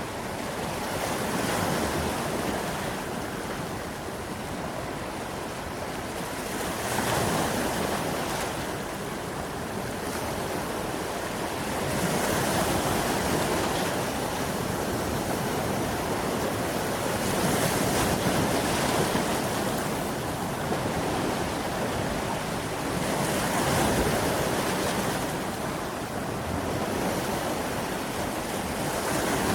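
Sea waves breaking and washing in, a continuous rushing surf that swells roughly every five or six seconds.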